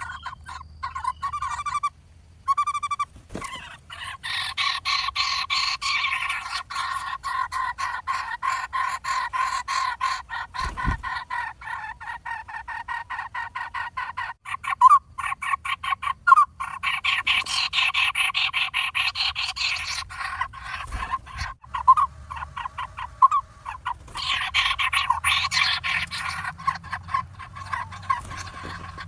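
Woodpecker nestlings begging: a continuous, rapid pulsing chatter that swells louder three times.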